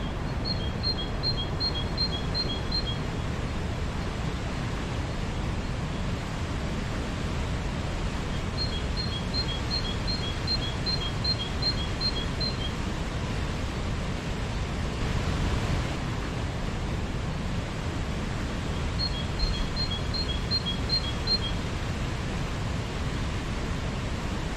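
Steady rainfall. Three times, a run of quick high chirps on two alternating pitches, about three a second, sounds over it for a few seconds.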